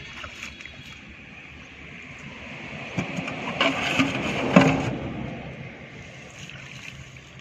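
A motor vehicle passing by: its noise swells over a few seconds, peaks about halfway through with a few sharp knocks, then fades away.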